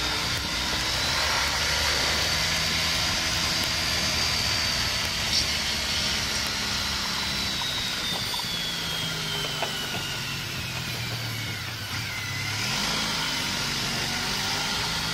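Honda ST1300 Pan European's V4 engine running, heard from the rider's helmet camera with wind rush, as the motorcycle accelerates along a lane and then slows again. Its pitch rises, then falls away over the second half.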